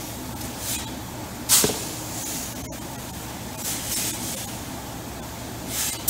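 Scoop shovel digging into and throwing wheat inside a steel grain bin: about five short rushes of sliding grain in six seconds, the loudest about one and a half seconds in.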